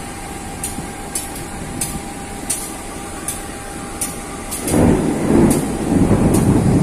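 CC203 diesel-electric locomotive idling at a standstill, then about two-thirds of the way in a loud low rumble of thunder rolls in and keeps going.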